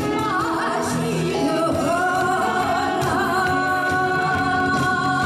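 A woman singing a Korean popular song into a microphone with band accompaniment; her voice glides through a short phrase, then holds one long note with vibrato from about two seconds in.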